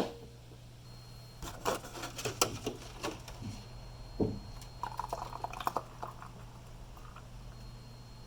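One sharp click, then a run of small clicks and knocks of objects being handled, with a few short liquid-like sounds.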